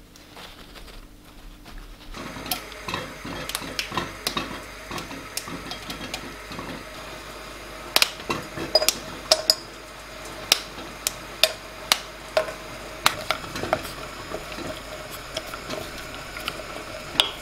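Chocolate pieces and a wooden spoon clinking against a glass bowl set over a saucepan as a bain-marie: many sharp clinks with a short glassy ring, coming thick and fast from about eight seconds in, over a steady low hiss.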